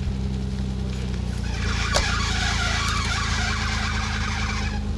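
GAZ Volga's engine running steadily, its note shifting about a second and a half in. A rasping noise rides over it for about three seconds, with a sharp knock near the start of it.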